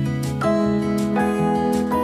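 Instrumental background music with guitar, its sustained notes changing every half second or so.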